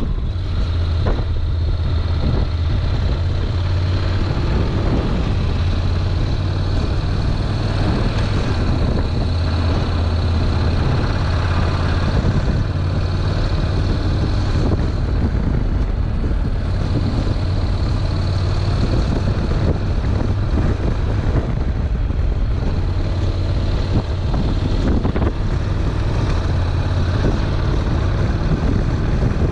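Honda NC700X's 670 cc parallel-twin engine running at an even pace under way, a steady low drone mixed with wind rushing over a bare action-camera microphone.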